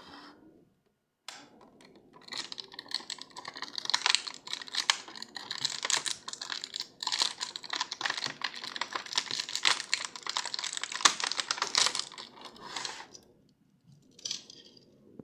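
Toy packaging being handled and opened: a dense run of rapid crackles and clicks from about two seconds in until about thirteen seconds, then a short burst near the end.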